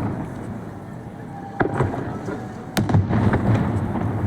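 Aerial fireworks shells bursting: two sharp bangs, a little over a second apart, each followed by a low rolling boom.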